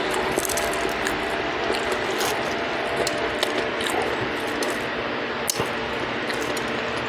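Crisp deep-fried trout being pulled apart by hand and eaten close to the microphone: irregular small crackles and crunches over a steady hiss, with one sharper crack about five and a half seconds in.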